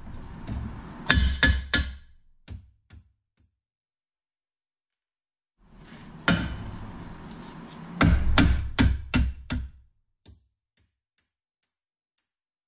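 Hammer blows on a socket to drive a front lower control arm bolt up into its bushing. There is a burst of about four sharp metallic strikes about a second in, then a longer burst of about six strikes from about six to nine and a half seconds, with a few faint clicks near the end.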